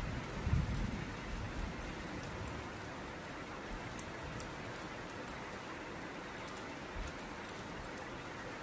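Steady rain falling, with scattered drops ticking sharply on a surface. There are a few low thumps in the first second or so.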